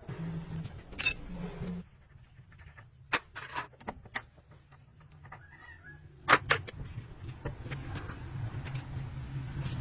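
Several sharp clicks and knocks at irregular intervals over a low steady hum, typical of hand work on a truck axle in a workshop.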